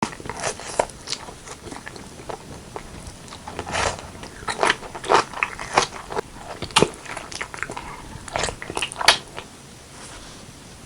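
Close-miked eating sounds: bites and chewing with crisp crunches and wet clicks, stopping about nine and a half seconds in.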